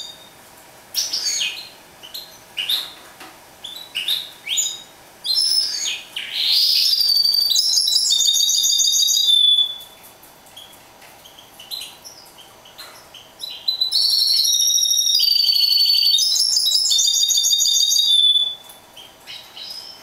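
A caged mule (hybrid finch) singing: short scattered chirps and calls, broken by two long phrases of fast, high trilling song, one near the middle and one later on.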